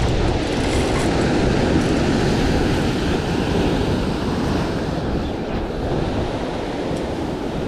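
Ocean surf washing against the shoreline rocks, a steady rushing noise, with wind buffeting the microphone.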